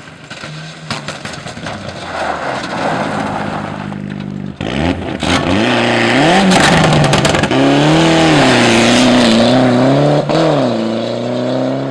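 Rally car engine approaching, then passing close at full throttle about four seconds in, its revs rising and falling repeatedly through gear changes, with a brief drop in sound near the end.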